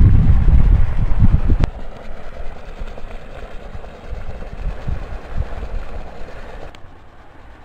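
Wind buffeting the microphone in loud, irregular low rumbles for the first second and a half. The sound then drops suddenly to a much quieter steady outdoor hiss, and falls again near the end.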